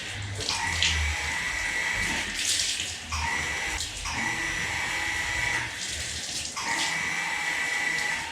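Tap water running and splashing in a washbasin, with a high whistling tone from the flowing tap that breaks off and returns every two to three seconds.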